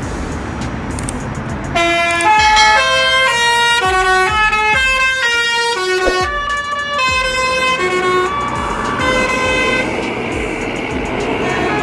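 A bus's basuri horn playing a tune of short stepped notes, starting about two seconds in, over a steady rumble of engine and road noise.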